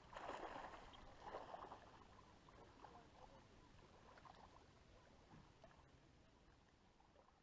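Near silence: faint water lapping and splashing around a small boat, with two slightly louder swells in the first second or two, then fading away.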